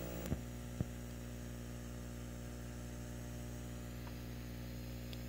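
Steady mains hum and buzz with many overtones over a faint hiss, coming from Tannoy speakers driven by 900-watt Bryston amplifiers. It is the noise floor of a TV's unbalanced analog output, amplified. Two short clicks come about a third of a second and nearly a second in as the TV switches input, and the hum drops a little after the first.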